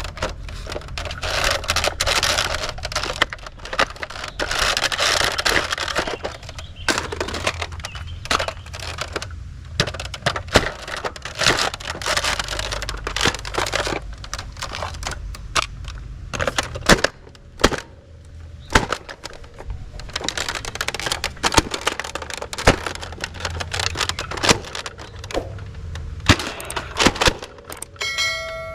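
Plastic toy blasters being handled: many sharp plastic clicks and rattles, with stretches of rustling.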